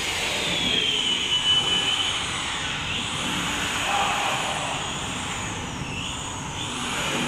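Hot-blade ribbon slitting machine running: a steady mechanical rush with a faint high whine that rises and falls every few seconds.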